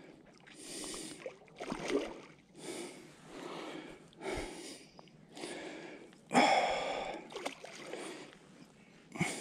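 A person breathing hard in short, rhythmic breaths, about one a second, while playing a hooked fish.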